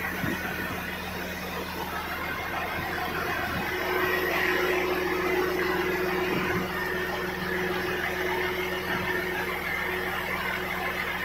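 Muddy runoff water rushing down a rock face in a steady torrent, under a steady engine hum like an idling vehicle; a higher steady tone joins the hum a few seconds in.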